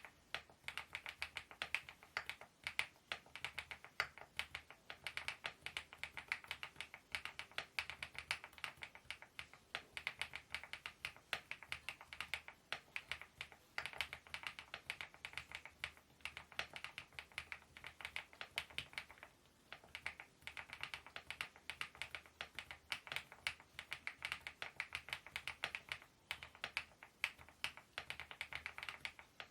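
Fast continuous typing on a mechanical keyboard fitted with KeyTok Godzilla dye-sublimated keycaps. It is a dense run of key-stroke clacks with brief pauses about 14 and 19 seconds in.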